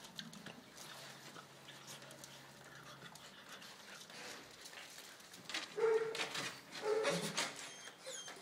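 Puppies play-fighting: light scuffling at first, then two short high yips a little past the middle.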